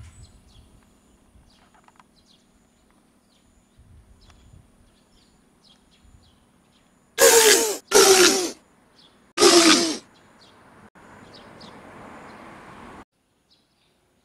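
Three loud voice-like cries in quick succession, each falling in pitch. They come after a faint outdoor background with light chirps, and are followed by a soft hiss that cuts off suddenly.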